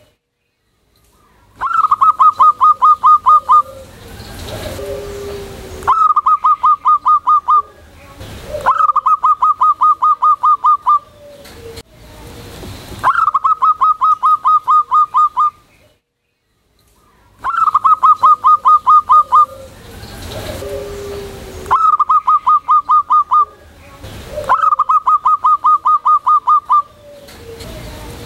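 Zebra dove (perkutut) calling: seven loud bursts, each a rapid run of about ten clipped, evenly spaced staccato notes lasting about two seconds, repeated every three to four seconds.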